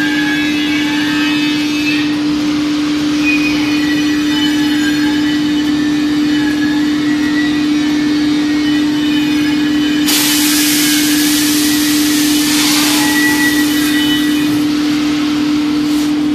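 Tyre-shop machinery: a steady one-pitch machine hum, with a loud hiss of compressed air starting about ten seconds in and lasting a couple of seconds, and a brief second hiss near the end.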